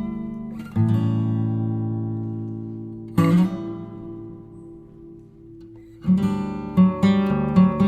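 Background music on acoustic guitar: chords strummed and left to ring out and fade, then a quicker run of plucked notes near the end.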